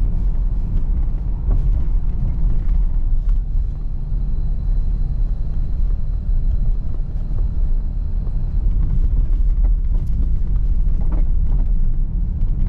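Car driving at road speed, heard from inside the cabin: a steady low rumble of tyres and engine.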